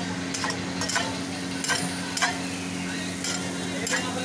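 Dosas sizzling on a large flat griddle, with a steady low hum underneath. A metal ladle or spatula scrapes and taps on the hot surface in about six separate short strokes.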